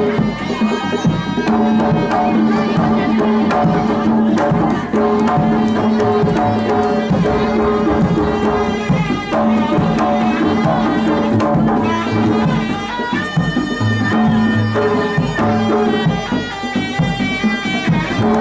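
Traditional East Javanese jaranan music: hand drums play a busy rhythm under held steady tones and a wavering melody line.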